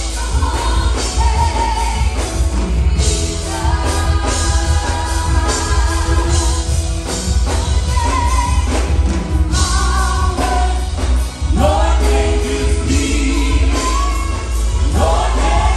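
Live gospel worship music: several singers on microphones over a band of keyboard, electric guitar and drums, with a strong low bass.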